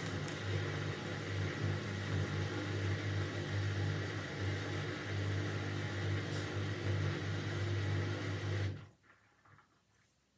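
Indesit 71252 washing machine running with a steady low hum that cuts off suddenly about nine seconds in, followed by a few faint clicks.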